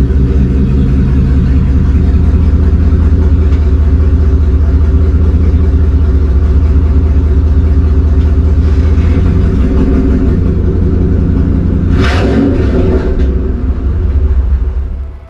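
Ford Lightning's V8 running loud and steady through its custom stainless exhaust, which has no resonator yet. There is a short burst of noise about twelve seconds in, and the engine sound cuts off just before the end.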